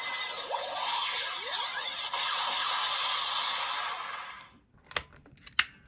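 Electronic transformation sound effect playing from a Kamen Rider Gavv toy belt's small speaker, a noisy whooshing with sweeping rising and falling tones, fading out about four seconds in. Two sharp clicks follow about a second apart.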